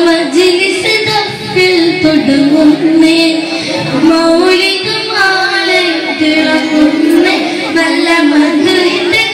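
Three boys singing a Malayalam Islamic devotional group song together into microphones, holding long, gliding notes.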